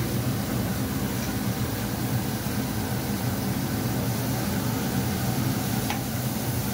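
Steady mechanical drone with a low hum under an even hiss, machine-like, with a short tick about six seconds in.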